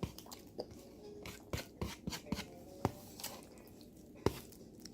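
A person chewing food close to the microphone, with irregular wet mouth-smacking clicks; the sharpest one comes about four seconds in.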